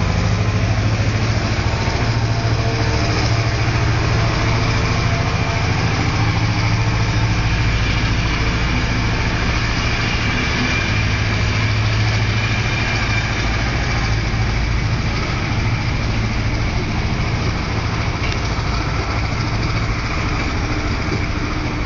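EMD G16 diesel-electric locomotive's Roots-blown two-stroke V16 diesel engine roaring under load as it pulls a passenger train away, a steady deep drone that eases off slightly over the last few seconds as the train recedes.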